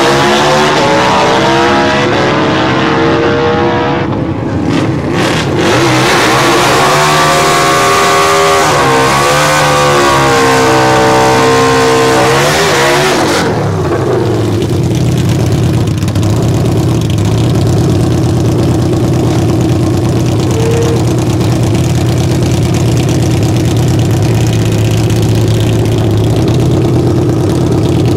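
Harley-Davidson V-Rod Destroyer drag bikes' V-twin engines at full throttle down the strip, their pitch sweeping down and up again. About halfway through this gives way to a V-Rod's engine idling with a steady, low, even note.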